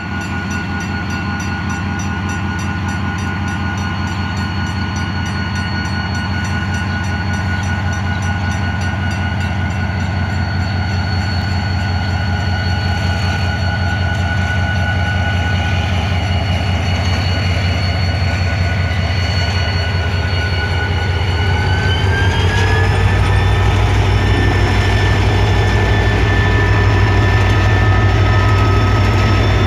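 EMD GT-22CW diesel-electric locomotive's V12 two-stroke diesel engine running with a deep hum and a whine as the train pulls away, growing louder as the locomotive nears. About 22 s in, the engine speed rises and the whine glides up to a higher pitch and holds there.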